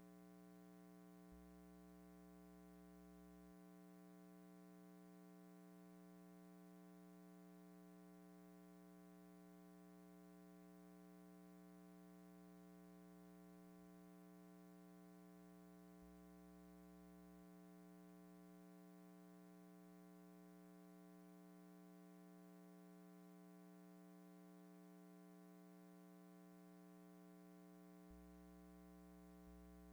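Near silence on a silent film's soundtrack, with only a faint steady hum.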